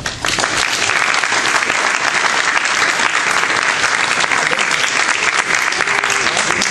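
An audience applauding, breaking out suddenly and holding steady.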